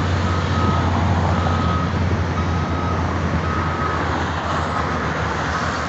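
A construction machine's reversing alarm beeping steadily about once a second, over the steady low drone of heavy engines and passing road traffic.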